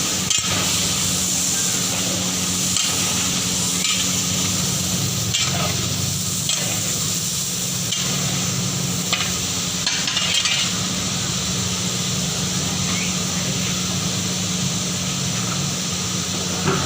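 Beef frying in a large cooking pot, a steady sizzle with irregular knocks and scrapes of a metal ladle stirring it, about one every second or so.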